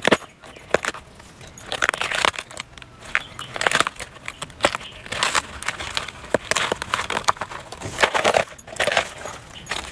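Papery sheaths being torn and peeled by hand from a fresh bamboo shoot, a run of irregular crackling and ripping bursts.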